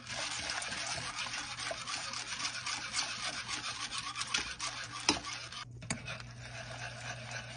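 Spoon stirring and scraping around a saucepan of hot pear syrup while cinnamon Red Hots candies dissolve, with a sharper clink about five seconds in.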